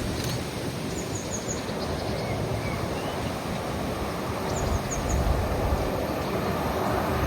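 Wind buffeting the microphone while the low rumble of an approaching train slowly builds, with a few short bird chirps.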